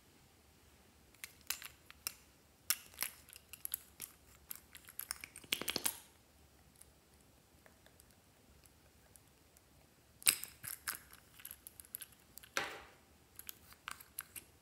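Small plastic containers and caps handled and opened, giving quick clicks and rattles in two bursts, each with a short rustling scrape: the first near the middle, the second near the end.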